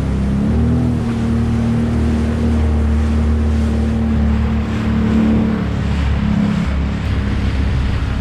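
Jet ski engine running at speed, with water hissing and slapping past the hull. The engine pitch rises about half a second in, then holds steady, dipping briefly a little past halfway.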